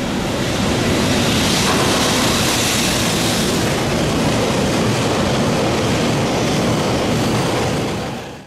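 Freight train passing at close range: a steady loud rush and rumble of wagons running over the rails, cut off abruptly at the end.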